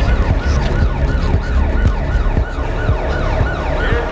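Police siren sounding in a quick, repeating falling sweep, about three sweeps a second, over a deep, steady low rumble.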